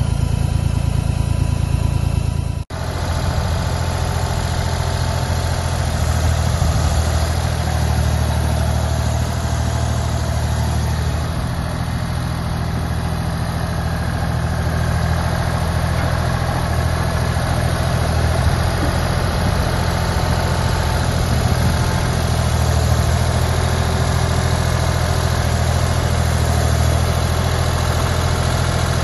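Ditch Witch RT40 ride-on trencher's diesel engine running steadily with a deep, even drone, with one sharp break in the sound about three seconds in.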